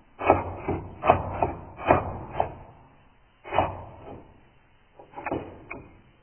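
Computer keyboard struck and clattering, played back in super slow motion so each clack comes out deep and drawn out: a run of about six knocks in the first two and a half seconds, one more at about three and a half seconds, and a few around five seconds in.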